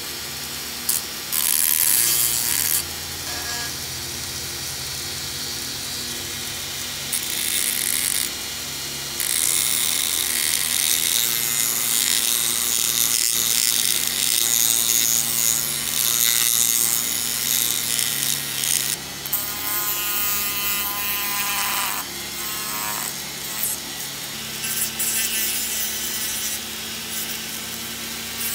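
Small handheld rotary tool running with a pink abrasive drum bit, grinding against a diecast model car's body. The motor runs steadily while the scratchy grinding gets louder and softer several times as the bit is pressed on and eased off.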